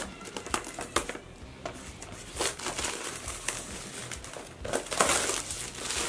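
Thin plastic shrink-wrap being torn and peeled off a cardboard product box: irregular crinkling and crackling, loudest about five seconds in.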